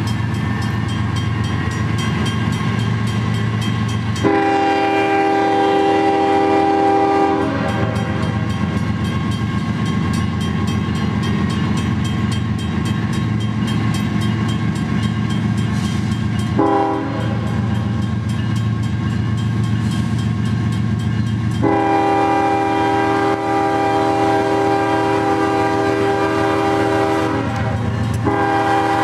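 CSX freight diesel locomotive sounding its multi-note air horn at the road crossings: a long blast, a short one, another long blast and a further blast starting near the end. Under it the locomotive's diesel engine and the train's wheels run steadily.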